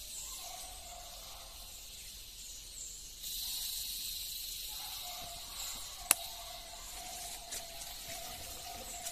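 Rainforest ambience: a high insect drone that gets louder about three seconds in, over a faint steady hum. One sharp click comes about six seconds in.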